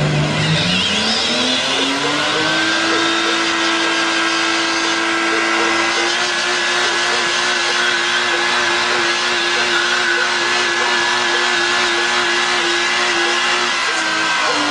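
Car engine revving up over the first couple of seconds and then held at high revs through a burnout, easing slightly near the end. The spinning rear tyres squeal on the wet road throughout.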